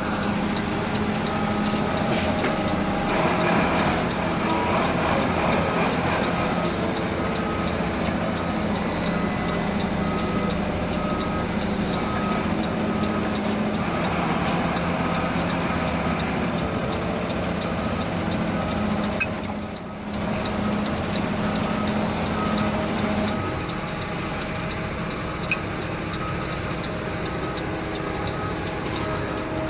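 Heavy truck engine running steadily at a concrete pour, with a backup alarm beeping about once a second. Briefly about 20 s in the engine sound dips, and its low steady tone stops a few seconds later.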